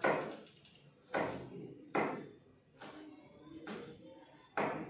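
A chef's knife chopping on a plastic cutting board: about five separate, unhurried knocks, each trailing off with a short ring.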